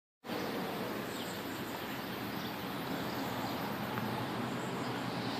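Steady outdoor background noise with a few faint, high chirps of small birds.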